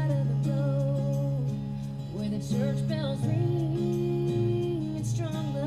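A song playing through the truck's stereo speakers from the docked iPad, with a steady bass line under a gliding melody.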